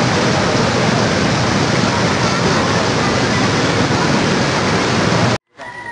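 Floodwater rushing down a swollen river, a loud steady roar of churning water. It cuts off abruptly about five and a half seconds in, followed by a short animal call.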